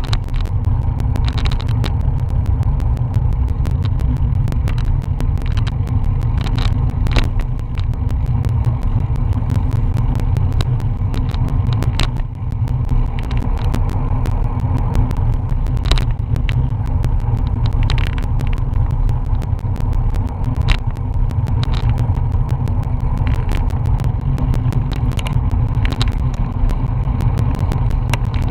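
Wind buffeting a bike-mounted action camera's microphone while riding, a loud steady low rumble mixed with tyre and road noise. Frequent sharp clicks and knocks run through it.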